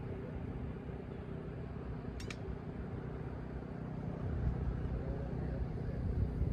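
Wind buffeting the microphone: a steady low rumble that swells a little after about four seconds, with one brief high click about two seconds in.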